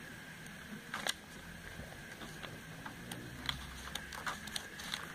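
Glossy catalogue pages being turned and handled by hand: scattered soft paper rustles and light clicks, the loudest about a second in and several more in the second half.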